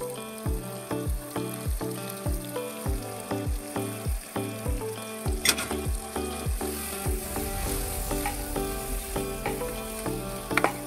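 Cauliflower and potato frying and sizzling in a pan while being stirred, the sizzle growing stronger in the second half, with two sharp clicks, one about halfway through and one near the end. Background music with a steady beat plays throughout.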